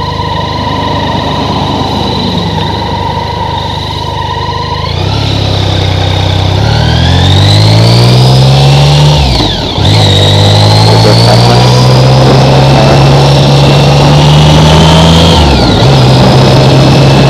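BMW K75 motorcycle's inline three-cylinder engine pulling the bike along. It runs steadily at first, then rises in pitch as it accelerates. About halfway there is a gear change with a sharp drop and brief dip, then it climbs again and settles to a lower, steady note near the end.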